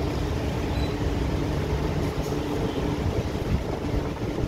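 Steady low rumble and electrical hum of an MTR Q-Train metro car standing at the platform, heard from inside the car by the doors.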